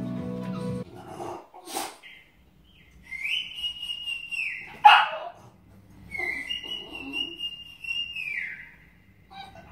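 French bulldog whining: two long, high-pitched whines, each dropping off at the end, with one short sharp bark between them.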